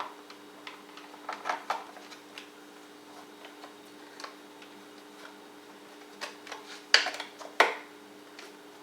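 Scattered light clicks and taps of screws, a screwdriver and plastic parts being handled on a dishwasher door panel, with two sharper knocks near the end. A steady low hum runs underneath.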